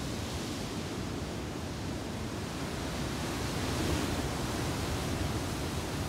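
Ocean surf breaking over rocky shore ledges: a steady rushing wash of water that swells a little about four seconds in.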